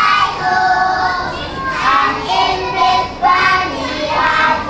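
A group of young children singing a song together in unison, holding each note for about half a second.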